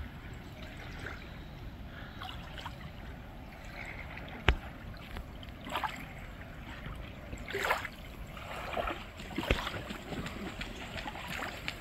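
Small waves lapping gently at the edge of the estuary, with a few louder laps and one sharp click about four and a half seconds in.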